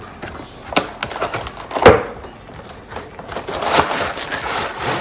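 A toy's box and packaging being opened and handled: scattered clicks and crackling, with one sharp knock about two seconds in.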